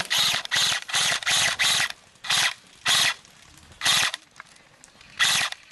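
Airsoft guns firing short full-auto bursts: about ten quick rattling bursts, fast one after another for the first two seconds, then spaced out.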